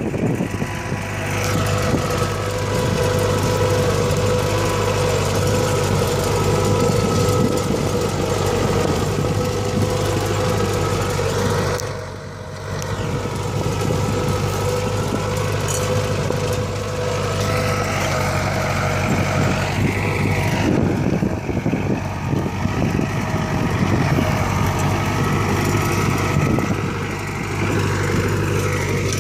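İşbora tractor engine running steadily under load while pulling a mouldboard plough through dry sod. The level dips briefly about twelve seconds in.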